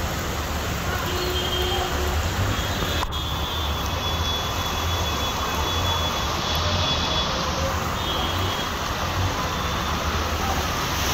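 Heavy rain and a car moving through floodwater, heard from inside the car: a steady rushing noise over a low engine rumble.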